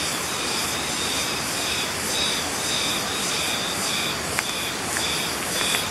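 Steady rushing vehicle and road noise while travelling along the road, with a faint high pulsing sound above it and a couple of small clicks near the end.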